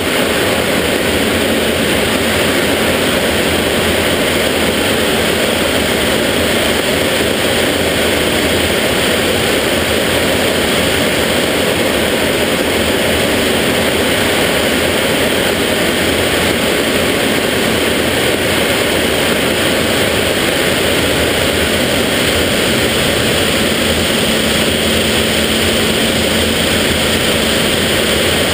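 BAC Jet Provost's Viper turbojet and the rush of air over the canopy, heard inside the cockpit as a loud, unbroken noise in flight. A faint steady hum joins it near the end.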